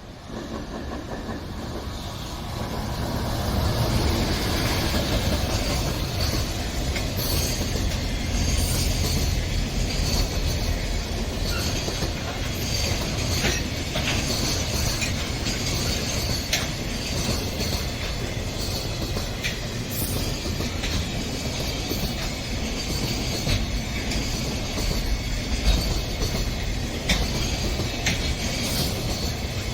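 Train passing close by on the line. The rumble builds over the first few seconds, then runs on steadily, with the wheels clicking over rail joints and some wheel squeal.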